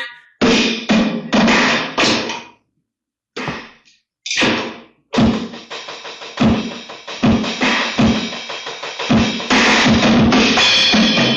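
A 'house' drum-beat preset: a few separate drum hits at first, then a steady beat of kick, snare and cymbal from about five seconds in. It is presented as one of the worst sounds, and called trash.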